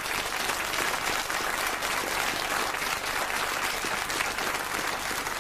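Studio audience applauding steadily: a dense patter of many hands clapping at once.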